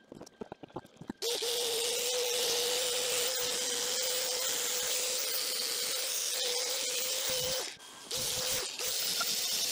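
Finger belt sander running against welded sheet steel on a VW bus window sill, grinding the weld beads smooth: a steady whine with a hiss of grinding. It starts after a few light clicks about a second in, and cuts out briefly twice near the end before running again.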